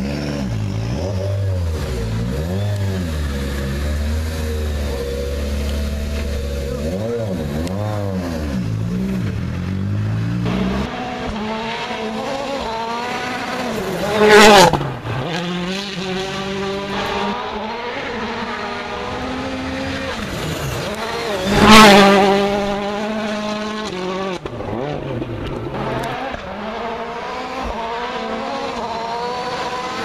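Citroën DS3 WRC rally car's turbocharged 1.6-litre four-cylinder engine, first revving up and down while stationary, then heard flat out on a gravel road. It makes two loud high-speed passes about 14 and 22 seconds in, each rising sharply in pitch as it nears and dropping as it goes by, with the engine rising and falling between them as the car works through the gears.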